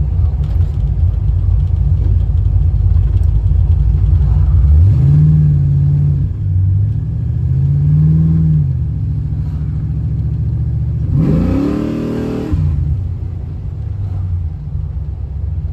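The V8 of a 1987 Chevrolet Monte Carlo SS, heard from inside the cabin on the move, running at a steady low drone. It revs up and back down twice, about five and eight seconds in, then gives a sharper, harsher rev with a hiss near twelve seconds.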